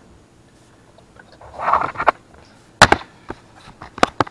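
A short metallic scrape, then a few sharp metal clicks and clanks from a driveshaft U-joint and yoke being worked in a bench vise as the joint is pressed and freed. The loudest click comes just under three seconds in.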